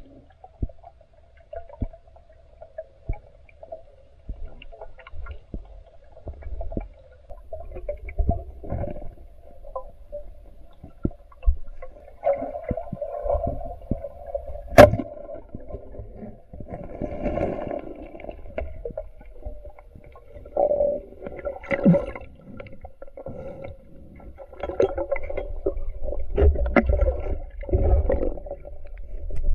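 Muffled underwater sound picked up through a submerged camera: low rumbling and bubbling with a faint steady hum and scattered clicks and knocks, including one sharp click about 15 seconds in, and busier bubbling in the second half.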